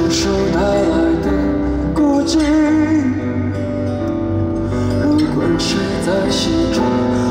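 Live band playing a slow pop ballad, with guitar, bass and drums under a sung melody that wavers and slides between notes.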